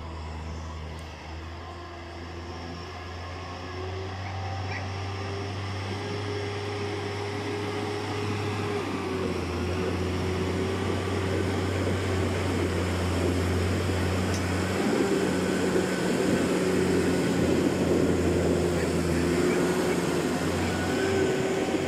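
New Holland T6080 tractor's six-cylinder diesel engine running steadily while it tows a SAC slurry tanker, drawing closer and growing steadily louder, with a steady whine over the engine hum. The crunch of tyres on gravel rises as it passes close by.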